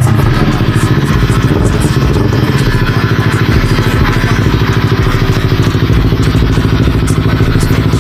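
Yamaha R3's 321 cc parallel-twin engine running steadily through an Akrapovic M1 full exhaust system, with an even, rapid pulse and no revving.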